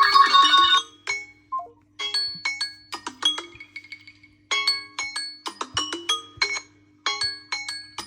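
Smartphone ringtone played through the phone's speaker: a marimba-like melody of quick, bright mallet notes in short repeated phrases with brief pauses between them, over a faint steady hum.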